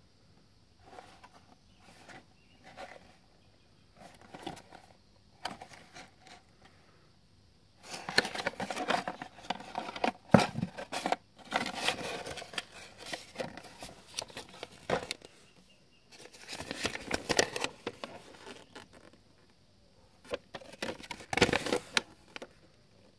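Unboxing handling sounds. A cardboard box is shifted in the hands with soft, scattered clicks and taps. Then, from about eight seconds in, a folded paper instruction leaflet is pulled out and unfolded, making loud crinkling and rustling in three bouts.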